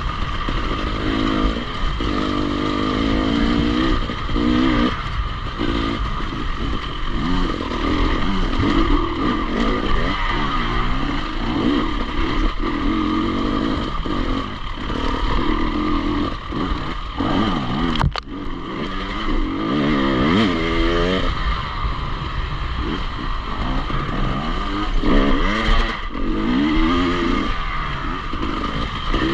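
Enduro motorcycle engine running as it is ridden, the revs rising and falling again and again, with a single sharp click about eighteen seconds in.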